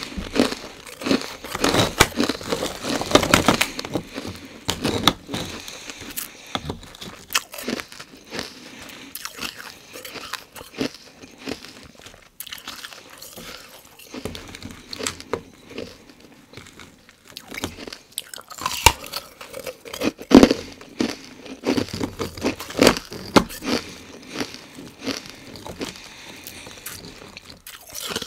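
Ice being bitten and chewed: crisp crunches and cracks of carbonated ice (frozen fizzy water). The crunching comes in dense flurries near the start and again past the middle, with softer chewing between.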